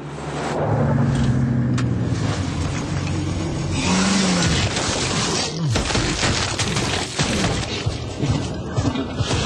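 Off-road SUV's engine revving as it climbs over rough ground, the pitch rising and falling about four seconds in, with rocks and gravel crunching and clattering under the tyres.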